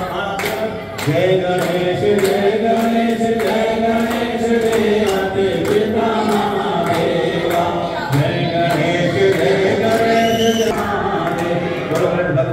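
A group of voices singing a devotional chant together, kept to a steady beat of sharp strikes.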